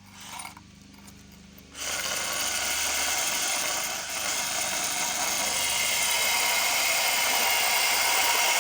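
Makita 12 V cordless hammer drill boring into granite, starting about two seconds in and running steadily, slowly getting louder.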